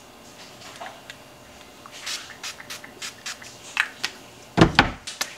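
Pump-spray bottle of facial mist spritzed several times in quick short hisses, followed by a louder thump near the end.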